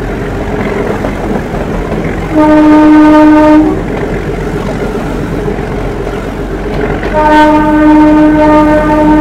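Horn of a metre-gauge train's locomotive sounding two blasts over the steady running noise of the train: a short one a little over two seconds in, and a longer one starting about seven seconds in and still going at the end.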